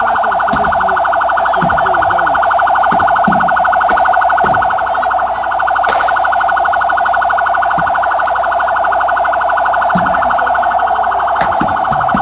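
An electronic siren sounding continuously in a fast, even warble, with faint shouting voices underneath.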